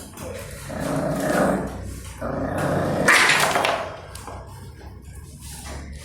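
Puppies growling as they fight over food, in two long rough stretches, with a louder, sharper bark-like outburst about three seconds in; the last two seconds are quieter.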